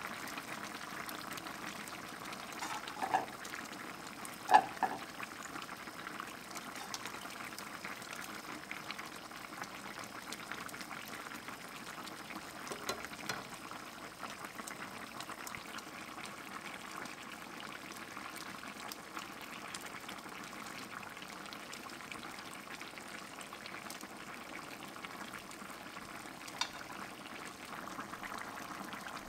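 Spicy Korean chicken stew (dakbokkeumtang) bubbling at a steady boil in a stainless steel pan. A few short sharp clicks come through, the loudest about four and a half seconds in.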